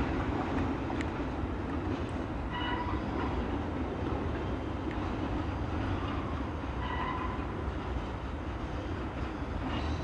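Freight train cars rolling past: a steady low rumble of wheels on rail, with two brief high-pitched wheel squeals, about two and a half and seven seconds in.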